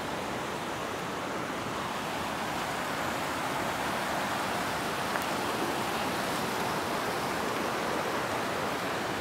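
Steady rushing of a fast mountain stream running over rocks.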